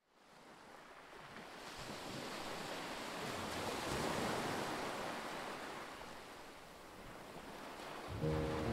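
Sea waves washing onto the shore, a rushing sound that swells to a peak mid-way and falls back. Music begins near the end.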